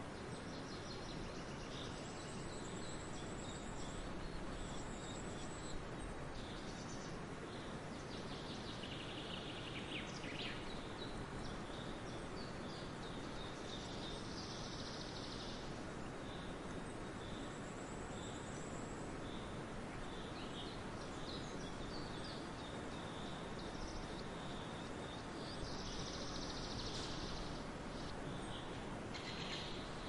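Rainforest ambience: a steady hiss of background noise, with birds calling and insects chirping over it in high bursts that come and go every several seconds.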